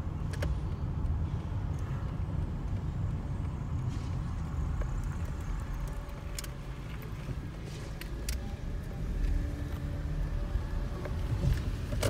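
Steady low rumble of a car's engine and tyres on the road, heard from inside the moving car, with a few faint clicks.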